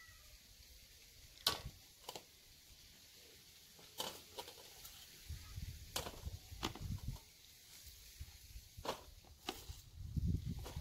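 Light knife and cutting-board handling: scattered sharp clicks and knocks over a steel tray, then low rustling as shredded cabbage is pushed off the board into a plastic colander near the end.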